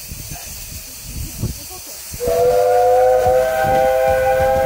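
Whistle of a 15-inch-gauge Ravenglass and Eskdale Railway steam locomotive. About two seconds in it sounds one long blast, a chord of several notes held steady, over a steady hiss of steam.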